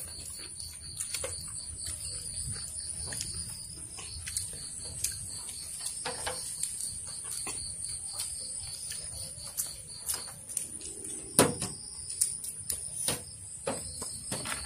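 A steady high-pitched chorus of insects chirping in a fast even pulse, with scattered light clicks of chopsticks and bowls as people eat, and one sharper clack about eleven seconds in.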